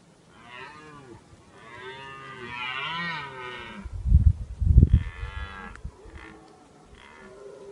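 Red deer stag roaring in the rut: a run of deep, drawn-out calls, the longest about two seconds in, with shorter ones near the end. Two heavy low thumps come about four and five seconds in.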